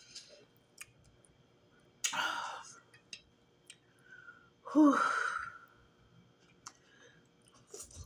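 A woman sighing heavily twice while eating, about two seconds in and again near five seconds; the second sigh ends in a falling, voiced moan. They are the sighs of someone very full partway through a large meal. A few faint clicks can be heard between them.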